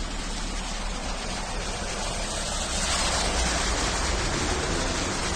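Muddy floodwater rushing along a street after heavy rain: a steady rushing noise that grows louder about three seconds in.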